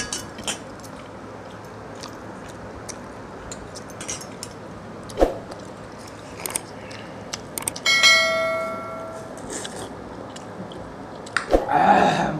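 Eating by hand from steel bowls: small clicks and chewing noises, with a sharp click about five seconds in. About eight seconds in comes a single bell-like ding that fades over a second or so, typical of a subscribe-button notification sound effect. Near the end there is a louder burst of noise.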